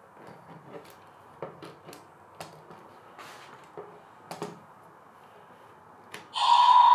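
Mattel Scorpios Rex toy dinosaur being walked and handled, its plastic legs and joints giving a string of light clicks and knocks. Near the end comes a loud roar from the toy's sound feature, lasting about a second.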